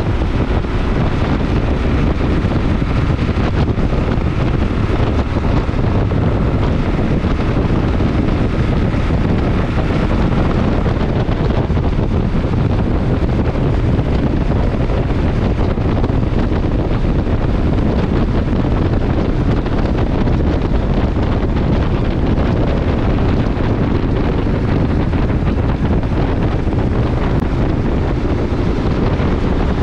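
Steady wind rush on the microphone over the running single-cylinder engine of a 2022 Kawasaki KLR 650 at riding speed.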